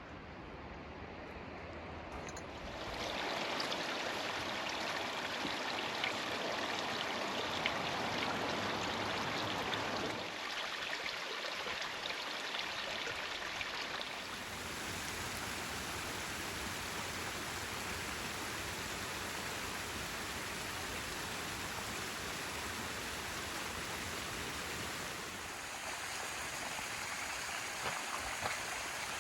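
Creek water rushing steadily, getting louder about three seconds in and shifting in level a few times.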